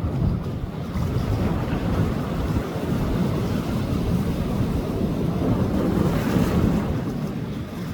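Sea waves breaking and washing up a beach, with wind buffeting the microphone; a wave surges in with a louder hiss about six seconds in.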